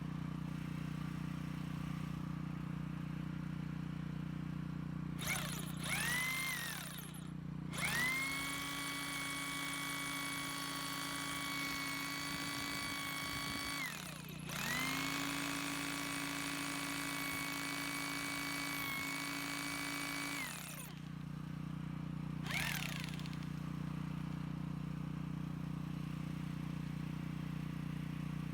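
Bosch GBH2/20S electric hammer drill's motor started with a short trigger blip that spins up and winds down. It is then run twice at a steady speed for about six seconds each, with a short pause between, and gets one more brief blip near the end.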